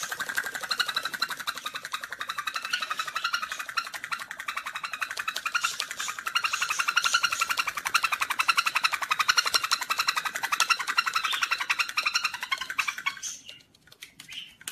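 Sun conure giving a fast, even chattering trill, many pulses a second, which stops near the end.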